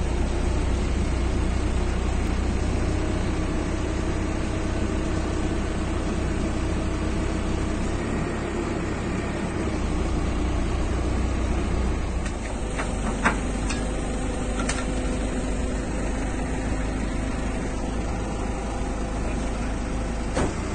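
Diesel engine of a crane truck running steadily while its hydraulic boom works, with a low hum throughout. A few short sharp clicks come about two-thirds of the way through, and one more near the end.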